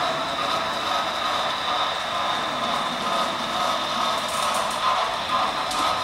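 Model steam locomotive and its freight cars running along the track, making a steady whine and rolling noise.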